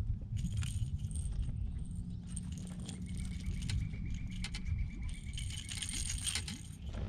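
Light metallic jingling and clicking of a topwater lure's treble hooks as a just-caught bass is handled and unhooked, over a steady low rumble.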